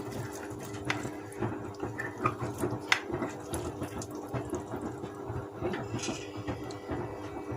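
Kitchen utensil clinking and knocking irregularly against a baking dish and serving plate, over a steady hum.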